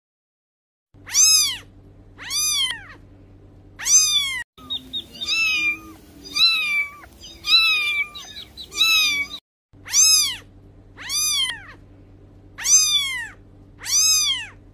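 Kittens meowing: about eleven short, high-pitched meows, each rising then falling in pitch, spaced roughly a second apart. They come in three runs from different kittens, with brief breaks between the runs.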